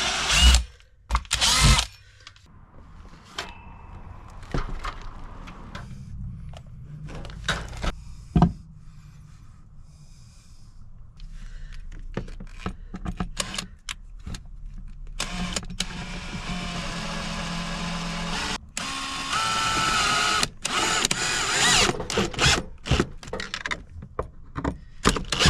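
Power drill running in two spells of a few seconds each, driving screws, after a stretch of clicks and knocks from handling tools and parts.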